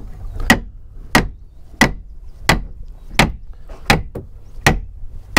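Hammer blows driving a new wooden frame down into place in a boat's hull: about eight sharp, evenly spaced strikes, roughly one every two-thirds of a second.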